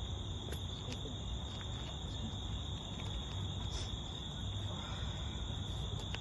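Crickets chirring in a steady, unbroken high-pitched trill, with a low rumble of background noise beneath.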